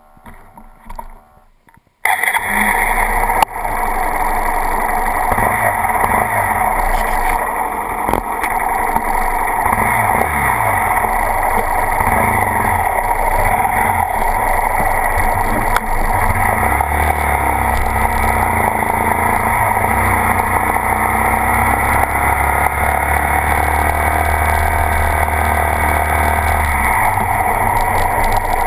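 Honda Grom's 125 cc single-cylinder engine, fitted with a Two Brothers S1R exhaust, running on the move. It starts abruptly about two seconds in, rises in pitch through several gear changes, then holds steady at cruising speed under heavy wind noise.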